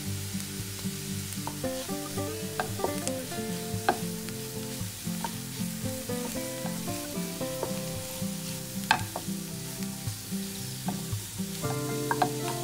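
Diced onion and grated carrot sizzling in oil in a nonstick frying pan, stirred with a silicone spatula, with a few sharp taps. Soft background music with stepping melodic notes plays alongside.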